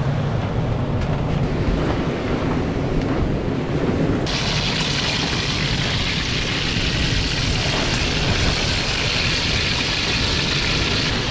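Wind rumbling on the microphone with surf behind it. About four seconds in, this cuts suddenly to a steady high sizzle of sliced food frying in a wok of hot oil over a wood fire.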